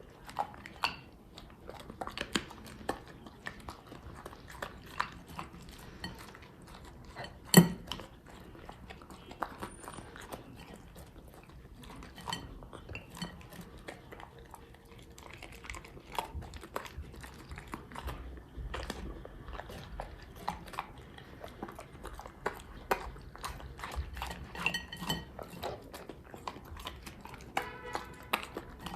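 Dog eating from a bowl: steady chewing and crunching with frequent small clicks and knocks against the bowl, and one loud knock about seven and a half seconds in.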